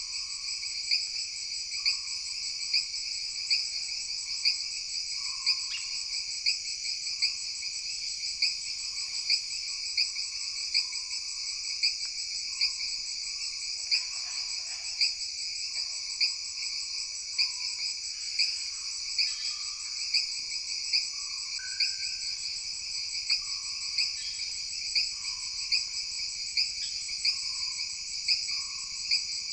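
Jungle insect chorus: a dense, steady, shrill trilling in several pitch layers, with frogs giving short, lower calls that repeat roughly once a second.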